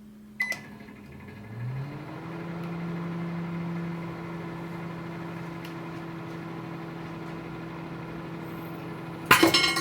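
Microwave oven started with a click and a short beep, its hum rising in pitch and then holding steady as it runs. About nine seconds in, loud crackling breaks out inside the oven: the resin-cast LED bulb arcing and sparking, catching fire.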